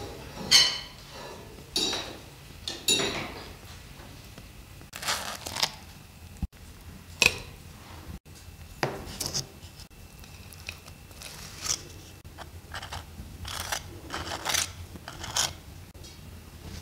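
Cutlery clinking and scraping on ceramic plates while crisp fried pancakes are cut and eaten: scattered short clinks and brief scrapes.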